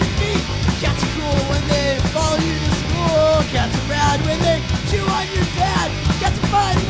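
Punk rock song playing, with a voice sliding up and down in pitch over the band.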